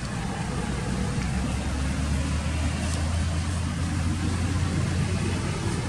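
A motor vehicle's engine running at a low, steady rumble, growing louder about a second and a half in and easing off near the end.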